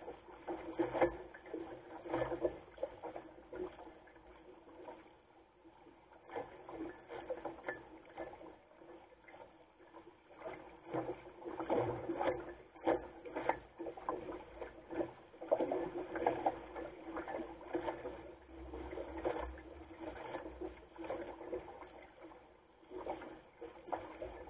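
Water splashing and sloshing along the hull of a Goat Island Skiff under sail, in irregular surges as it moves through choppy water.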